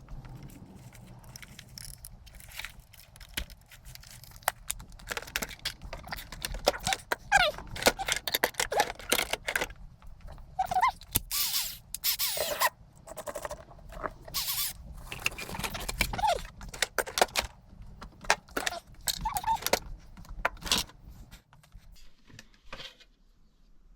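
Parts of a dismantled plastic blender being handled and moved about: irregular clicks, clatters and scrapes of plastic and metal pieces, thinning out near the end.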